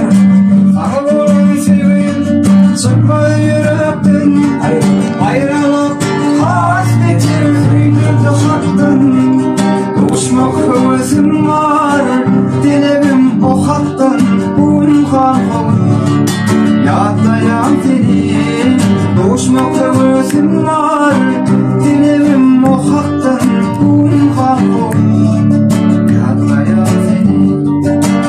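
Two classical guitars playing a duet, plucked notes and strummed chords running on without a break, with a voice singing over them.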